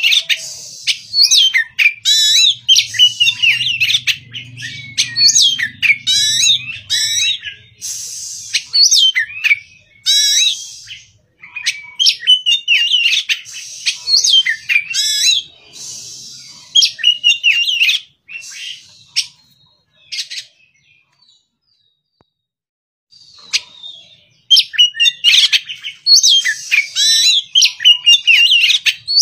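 Oriental magpie-robin (kacer) singing a rapid, varied song of loud whistles and chattering notes. It pauses for a few seconds about three-quarters of the way through, then starts again.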